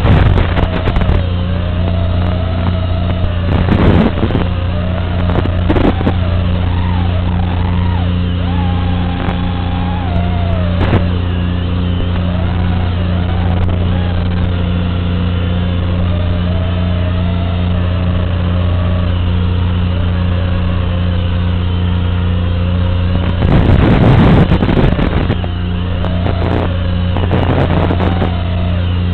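FPV racing drone's motors whining over a steady low hum, the whine rising and falling in pitch as the throttle changes. Short bursts of static hiss break in about 4 and 6 seconds in and again near the end, when the video signal breaks up.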